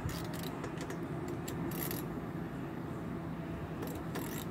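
Light metallic clicks and clinks of hardware being handled and fitted by hand into a steel kayak-rack bracket, scattered irregularly, over a steady low hum.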